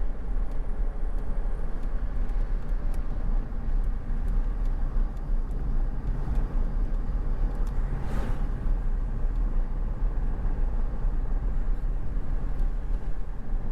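Steady low rumble of a car being driven along a road, with a brief whoosh about eight seconds in.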